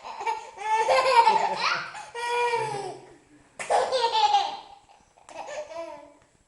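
A baby laughing hard in three high-pitched bouts of belly laughter. The first and longest starts about half a second in and lasts over two seconds, and two shorter bouts follow after brief pauses.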